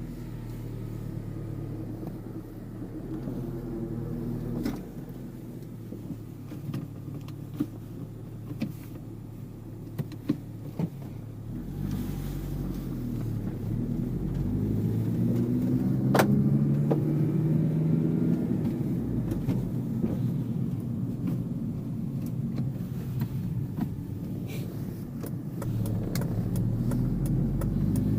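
Acura CSX's four-cylinder engine running as the car drives off, its note rising under acceleration about halfway through and then settling. A few light clicks come before the climb.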